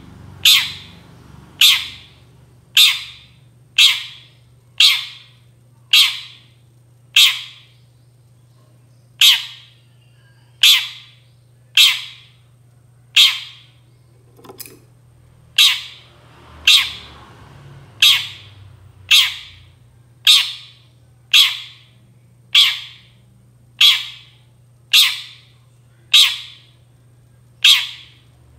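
Long-tailed shrike (cendet) giving a string of short, harsh calls, about one a second, with a brief pause about eight seconds in. A steady low hum lies under the calls.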